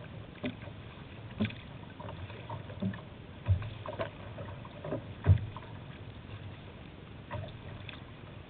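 Kayak moving over choppy river water: water slaps and splashes against the hull and bow in irregular knocks about once a second, over a steady wash of water and wind. The loudest knock comes about five seconds in.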